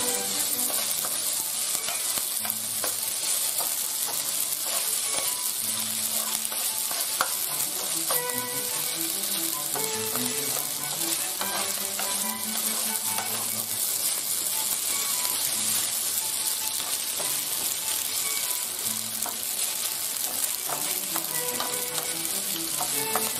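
Penne pasta sizzling in oil in a stone-coated frying pan, steadily stirred and tossed with a wooden spoon that scrapes and clicks against the pan.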